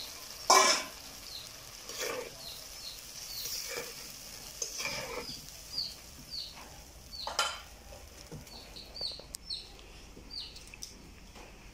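Water poured from a metal bowl into a steel wok of simmering mustard-poppy sauce, with a loud sharp clank about half a second in and several lighter knocks of metal on the wok, over a low sizzle. Short, high, falling bird chirps repeat about twice a second.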